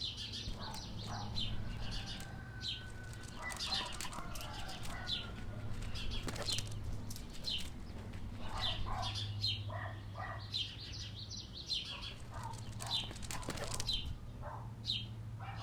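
Backyard ambience: small birds chirping again and again, with scattered chirps throughout, over a steady low hum.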